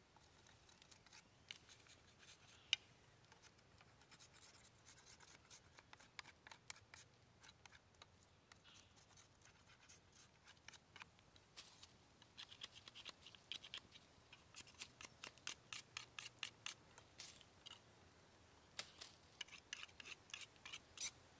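Small knife scraping bark off a green stick in short, quick strokes, faint. Sparse at first, the strokes come in steady runs of about five a second in the second half.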